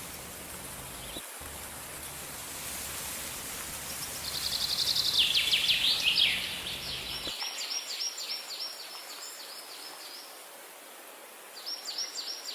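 A songbird singing fast runs of high, repeated notes: one phrase about four seconds in and another near the end, over a steady background hiss.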